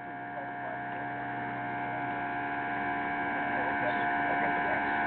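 A steady electrical hum made of several fixed tones, slowly growing louder.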